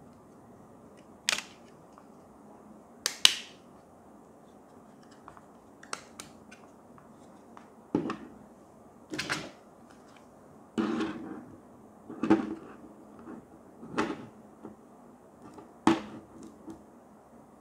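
Hands handling a plastic wireless charging stand, its cable and a smartphone, making about ten separate clicks and knocks with short scuffs over a faint hiss as the cable is plugged in and the phone is set on the stand.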